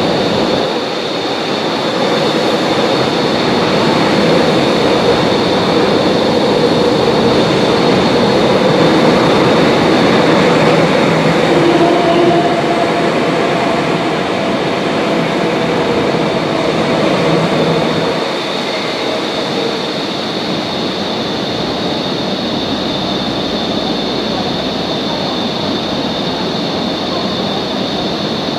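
MTR Tsuen Wan Line C-Train metro train running through an underground station platform without stopping, a steady rumble of wheels and motors with a faint humming note in it. The rumble drops away about two thirds of the way through as the train leaves the platform.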